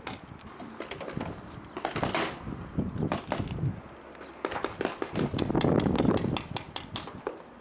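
Paintball markers firing in rapid, irregular pops, several a second, coming thicker and louder in the second half.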